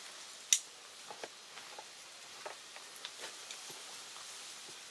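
Backpack buckle snapping shut with one sharp click about half a second in, followed by a scatter of small clicks and rustles as hands work the pack's straps and fittings.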